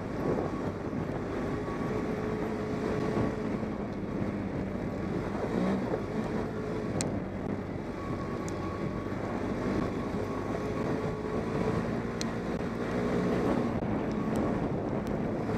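ATV engine running steadily as the quad is ridden along a rocky dirt trail, with a few sharp ticks over the engine and tyre noise.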